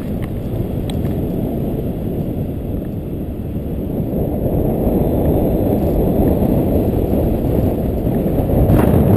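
Wind noise from the airflow rushing over the camera microphone as a paraglider flies: a steady low rush that grows louder from about halfway.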